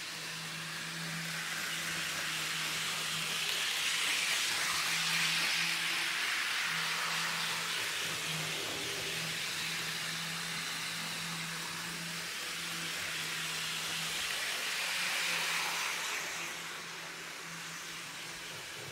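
Model train running on the layout: a steady whirring hiss that swells twice as it passes close, over a low steady hum.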